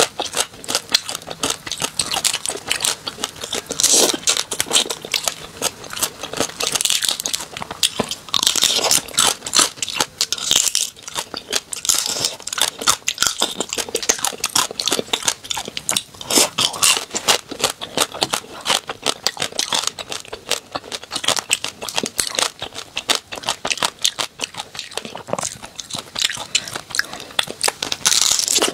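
Close-miked crunching and chewing as small shell-on seafood in chili oil is bitten and eaten, with many sharp, crackly crunches throughout.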